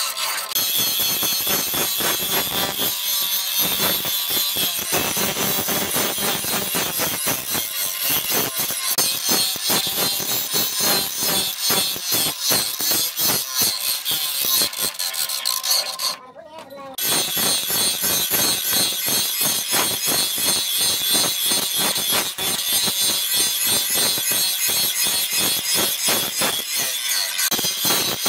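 Electric angle grinder with an abrasive disc grinding a steel chisel blade: a steady, gritty grinding hiss with fast rasping pulses as the disc works the metal. It breaks off briefly a little past halfway, then resumes.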